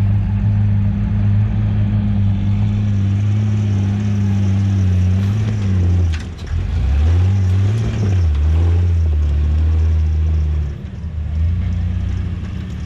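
Ford Bronco's Powerstroke diesel engine running steadily while driving on a trail. Its pitch dips about six seconds in, rises again a second later and holds, then eases off near the end.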